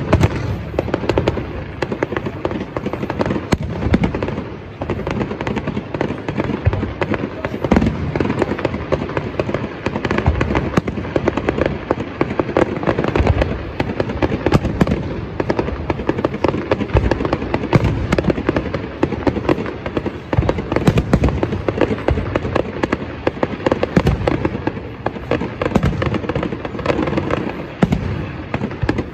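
Fireworks going off: many overlapping bangs and crackles in quick succession, without a break.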